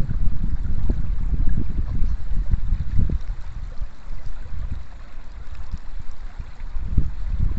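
Shallow river water running over stones, under a low, uneven rumble of wind on the microphone.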